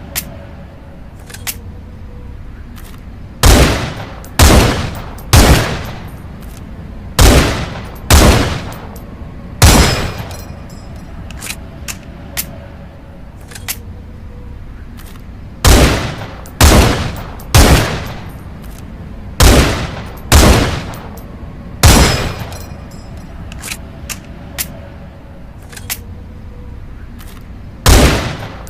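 Rifle shots from the M182 Pierre fusil, fired singly in groups of three about a second apart, each shot ringing out for about half a second. Faint clicks fall in the pauses between groups.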